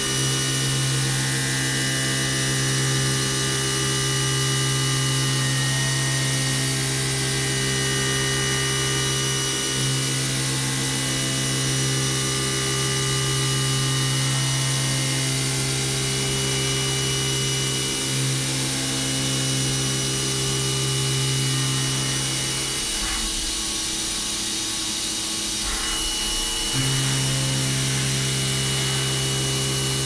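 CNC milling machine running a programmed cut, its spindle and end mill machining a round part held in a three-jaw chuck and throwing chips. A steady mechanical hum with a hiss over it; the hum drops out for a few seconds about three-quarters of the way through, then comes back.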